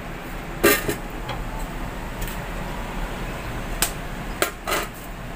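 Kitchen jars and a spoon being handled: a sharp knock about a second in and a few more clicks and knocks near the end, over a steady low hum.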